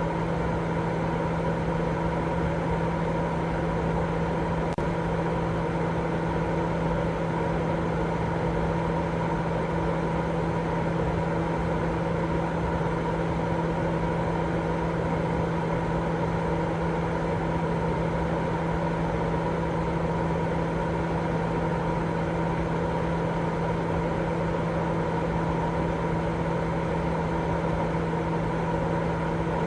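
Continuous white-noise sleep sound: a steady rushing hiss with a low hum running through it, unchanging throughout.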